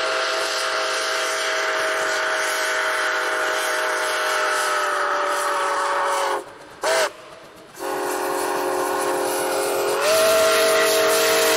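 Steam locomotive's chime whistle blowing long blasts, a steady chord of several tones. It breaks off for about a second and a half just past the middle, then sounds again, its pitch stepping up slightly near the end.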